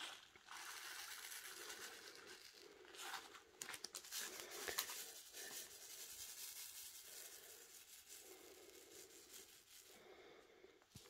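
Faint crinkling of a plastic bag and rattling of small square acrylic diamond-painting drills as they are poured into a plastic sorting tray and shaken so they settle into its rows, with a few light clicks in the middle.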